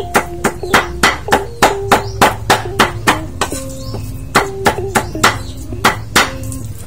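Cleaver chopping food on a thick round chopping block, sharp strokes about three a second with a short pause near the middle. Background music with a melody plays under it.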